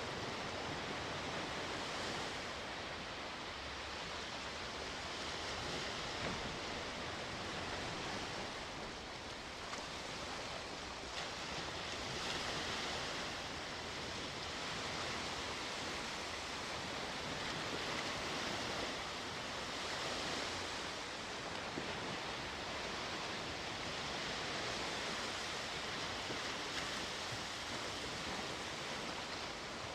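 Sea waves breaking and washing on the shore, a steady hiss of surf that swells and eases every few seconds.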